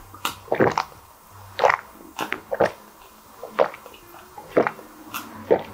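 Close-up swallowing gulps of a dark fizzy drink from a glass, a short wet gulp about once a second.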